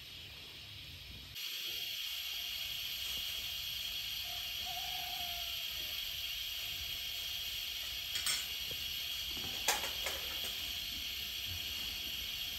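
A steady hiss starts suddenly about a second and a half in, with two soft clicks later on.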